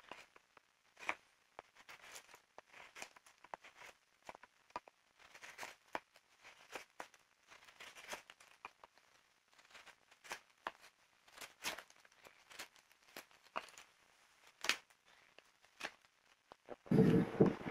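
A knife whittling a wooden stick: irregular short scrapes and clicks as the blade shaves off slivers. Near the end, a much louder, steady rushing noise suddenly takes over.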